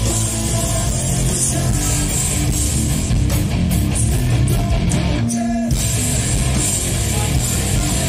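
Live nu-metal band playing loudly through a club PA: distorted electric guitar, bass and a drum kit in a heavy song. A little past five seconds in, the band drops out for a moment, leaving one held low note, then comes back in.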